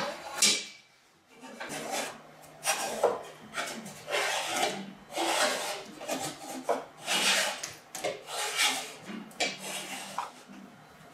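Plastic levelling disc being turned under the Formlabs Form 3L's adjustable foot, rubbing and scraping against the wooden tabletop as the printer is levelled: a series of irregular rasping rubs, about one or two a second.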